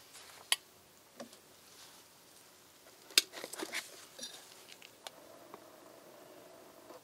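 A plastic electric kettle is lifted off its base with a few sharp clicks and knocks, the loudest a little past halfway, then hot motor oil heated to 100°C is poured from it onto the friction tester's sample, a faint steady pour near the end.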